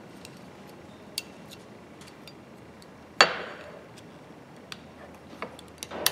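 Small metallic clicks and ticks as a thin steel probe is worked into the spring assembly inside a pipe wrench's frame, with one louder metal knock about three seconds in.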